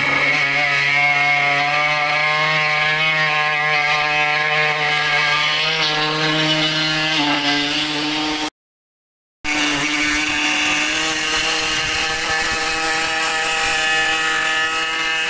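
A pneumatic power tool running continuously with a steady whine, its pitch shifting slightly now and then. The sound cuts out completely for about a second just past the middle, then resumes.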